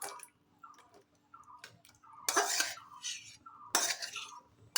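Spoon scraping and clinking against a cooking pot of thick chicken curry as it is taken off the stove, in a few short strokes, the loudest about halfway through.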